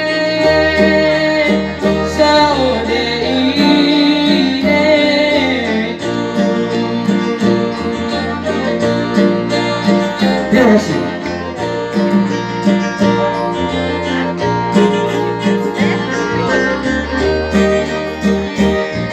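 Arranger keyboard playing a Pamona karambangan tune in a plucked-guitar voice over a bass line, with a man singing along through a microphone.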